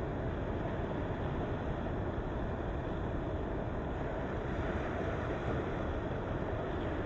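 Ocean waves on the shore: a steady, unbroken rush of surf with no single breaker standing out.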